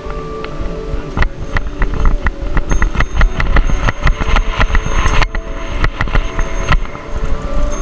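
Bicycle rattling and clattering over a rough gravel trail, a dense run of sharp knocks from the frame and parts on the stones, with wind buffeting the microphone.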